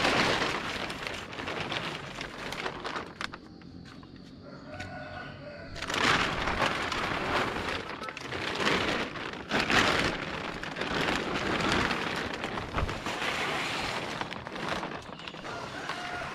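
Thin plastic sheeting rustling and crinkling as it is handled and pulled over, in loud bouts with a quieter lull about four to six seconds in.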